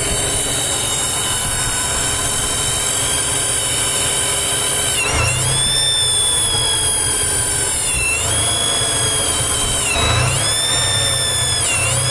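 1995 Chevrolet S10's throttle-body-injected engine running warm with a high-pitched whistling squeal over the engine note; four times the squeal dips briefly in pitch as the engine rumble swells, then returns. The squeal is a vacuum leak, traced to a bad TBI base gasket.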